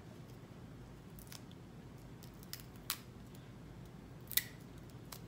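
A few faint, sharp clicks and snips from handling a fingerboard deck as excess grip tape is worked off its edge: three clearer ones roughly a second and a half apart, the loudest near the end.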